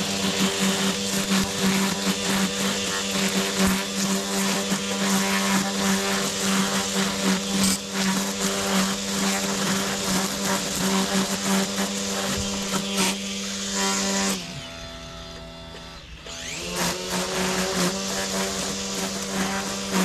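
Battery-powered Makita string trimmer running at a steady speed, its line crackling as it cuts through grass. About fourteen seconds in the motor winds down, and a couple of seconds later it spins back up to full speed.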